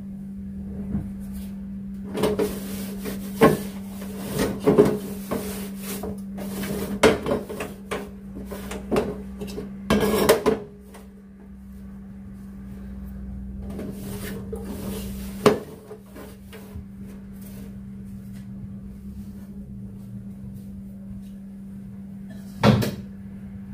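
Scattered knocks and clatter of kitchen things being handled, over a steady low hum. The knocks come thickly in the first ten seconds or so, then there are only two more, one past the middle and one near the end.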